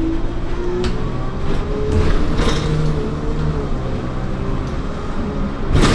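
Bus engine and road noise heard from inside the moving bus, the engine note climbing in pitch over the first couple of seconds as it pulls along, with light rattles from the cabin.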